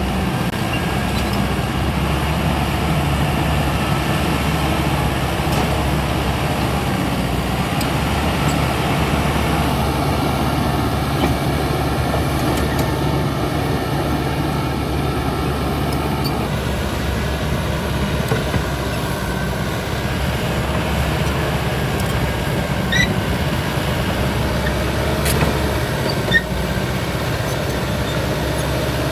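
Caterpillar D6R XL bulldozer's diesel engine running steadily under work, its note shifting a couple of times, with a few short sharp clanks near the end.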